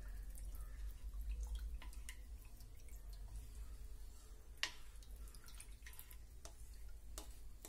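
Plastic spoon stirring a thin cornflour-and-water slurry in a plastic bowl: faint liquid swishing with scattered light taps of the spoon on the bowl, one sharper tap about four and a half seconds in.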